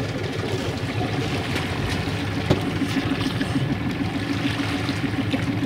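A sailing yacht's inboard diesel engine running steadily at low revs while the boat manoeuvres slowly, with water trickling and sloshing by the hull. There is a single faint click about halfway through.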